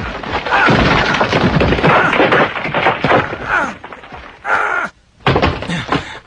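Animated-fight sound effects: a run of crashes and thuds as a body tumbles down a rock face, with a man's voice crying out in pain several times. There is a brief break just before the end.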